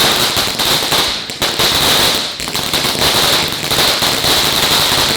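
A lit consumer ground firework burning, giving off dense rapid crackling over a steady high-pitched hiss, dipping briefly twice.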